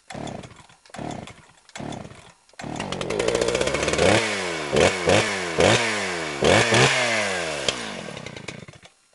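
Chainsaw engine in three short sputters, then catching about two and a half seconds in and running, revved sharply several times with the pitch falling back after each rev, before dying away near the end.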